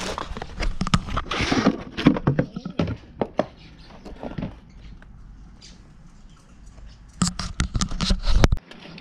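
Cardboard box rustling and scraping as a small lithium battery is pulled out and handled, with scattered knocks and rubs. The noise dies down in the middle, then a busier run of handling noise comes near the end and cuts off suddenly.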